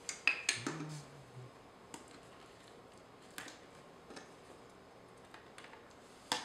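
Small clicks and taps of camera gear being handled: a lens twisted off an Olympus OM-D E-M5 mirrorless body's metal mount and lens caps handled. A quick run of clicks at the start, a few scattered single clicks, and another cluster near the end.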